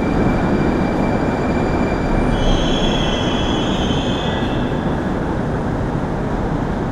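Moscow Metro train running on the rails with a steady rumble. The wheels squeal with high thin tones from about two to four and a half seconds in.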